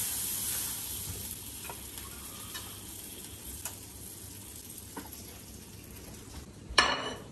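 A quesadilla and spilled mayonnaise sizzling in a hot frying pan, the sizzle fading over the first few seconds, with a few light clicks of a spatula against the pan. Near the end comes one sharp, loud clatter.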